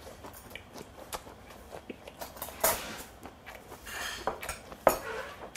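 A man chewing a mouthful of food at a table, with scattered small clicks and clinks of tableware. Two sharper clinks stand out, one about two and a half seconds in and a louder one near the end.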